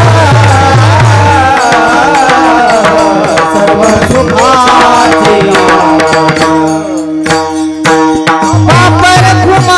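Devotional kirtan music: a gliding melodic line over a steady drone, with hand-drum strokes at the start that stop after about a second and a half and return near the end.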